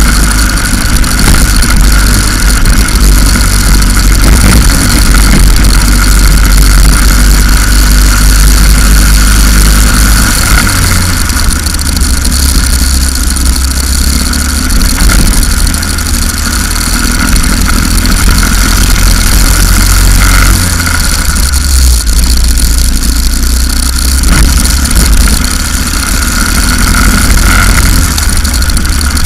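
Racing kart engine at speed, recorded from an onboard camera on the kart. It runs loud and continuous, and its note shifts about a third of the way in and again about two-thirds in.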